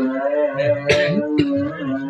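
Vocal music or chanting: a voice holding long notes that bend slowly, with a sharp click about a second in and a smaller one shortly after.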